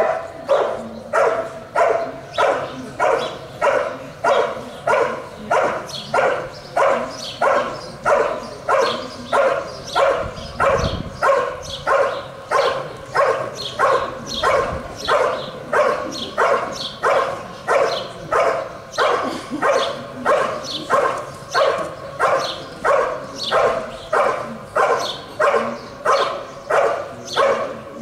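Belgian Malinois barking steadily at the helper in the blind, about two barks a second without a break. This is the hold-and-bark of IGP protection work.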